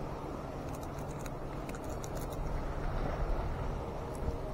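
Steady wash of sea water sloshing close to the microphone, with a scatter of faint small clicks as a fish is worked free of a nylon gill net.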